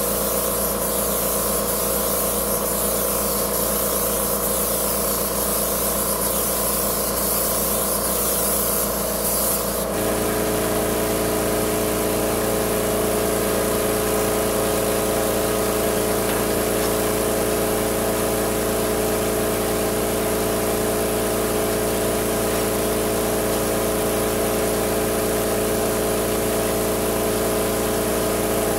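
Titan AirCoat air-assisted airless paint sprayer in use: a high hiss of spraying from the gun over the machine's steady mechanical hum. About ten seconds in the spray hiss cuts off suddenly and the hum changes pitch as the machine keeps running.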